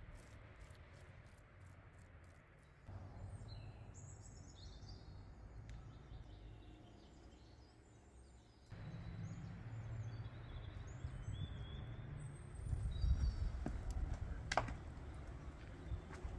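Small birds chirping over and over above a low, steady outdoor rumble, which grows louder in two steps; a couple of sharp knocks near the end.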